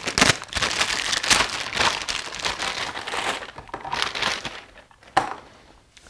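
Clear plastic parts bag crinkling and rustling as rubber tires are pulled out of it by hand, thinning out after about three seconds. A single sharp tap comes a little after five seconds in.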